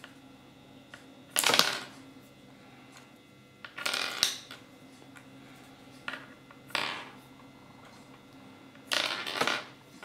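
Small plastic Kinder Surprise toy pieces handled by hand: five short rustling, clattering bursts spread a couple of seconds apart, over a faint steady hum.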